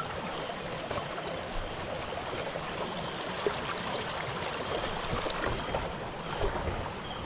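Steady rush of flowing stream water, with a few faint clicks of handling.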